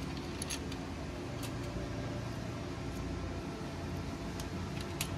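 Steady low machine hum, like a shop fan or air conditioner, with a few faint clicks of small steel washers and nuts being handled and fitted onto fuel-tank flange studs.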